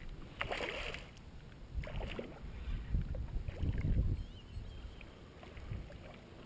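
A hooked largemouth bass splashing as it is drawn through shallow water to the bank, with low rumbles on the microphone.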